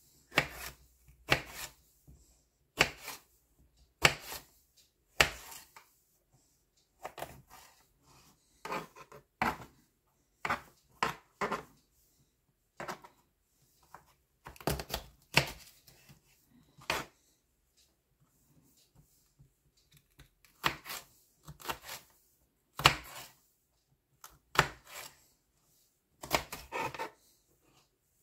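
Kitchen knife chopping a green bell pepper on a plastic cutting board: a slow, uneven series of sharp knife strikes against the board, with a pause of a few seconds after the middle.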